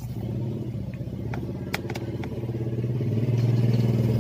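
A small engine running steadily with a fast, even pulse, growing louder about three seconds in. A few light clicks are heard over it.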